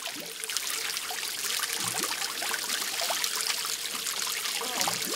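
Water trickling and pouring steadily into a concrete pond, with a few faint small splashes.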